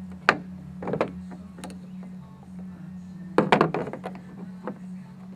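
Plastic head of a Ford PATS key being pried open with a flat-head screwdriver, cracking in several sharp clicks and snaps, with a quick cluster of them about three and a half seconds in.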